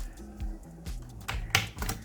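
Background music with a steady beat: regular low bass thumps under sharp percussion hits.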